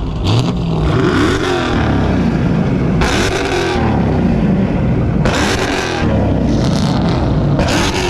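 Car engine revving up and down over and over, loud and close. Three bursts of rushing noise come in about two seconds apart.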